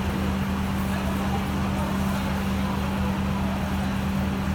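Parked fire engines running steadily, a constant low drone with no siren.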